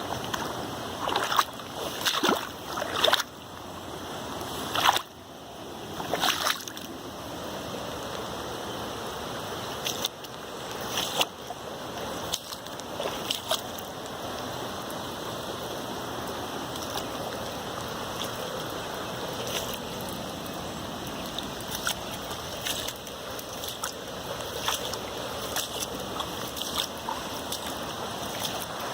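Steady rush of running floodwater, with irregular sharp knocks and clicks scattered through the first half.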